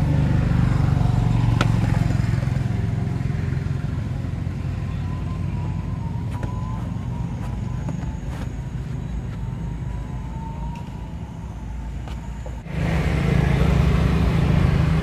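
Tuk-tuk's motorcycle engine running steadily with a low rumble, and a few sharp clicks over it. The sound eases a little, then comes back louder all at once near the end.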